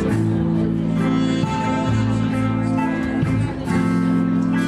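A live band playing instrumental music, with held low notes that change every second or so.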